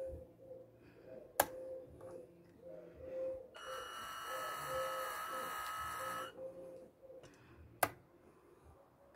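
Electric motors of a radio-controlled CAT 320D model excavator whining steadily for about three seconds under stick command, starting a few seconds in. Two sharp clicks come before and after it, with a faint pulsing hum underneath.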